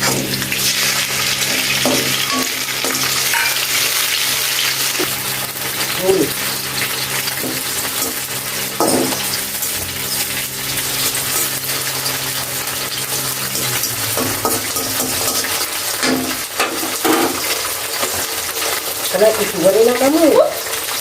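Sliced tomato sizzling as it fries in hot oil in a kadai, with a spatula stirring and scraping now and then against the pan.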